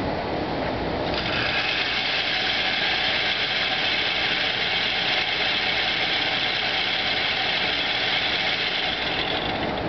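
Electric motor of an overhead target carrier whirring steadily as it runs a paper target downrange. It starts about a second in and stops near the end.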